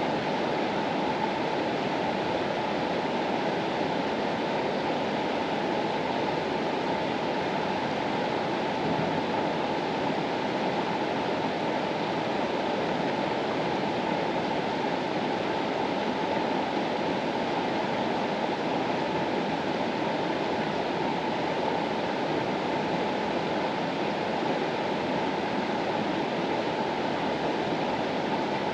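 The Mastallone river's water rushing steadily, an even, unbroken noise with no changes.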